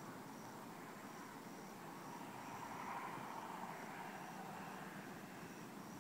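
Crickets chirping, short high pulses repeating about twice a second, over a faint rushing background noise that swells slightly in the middle.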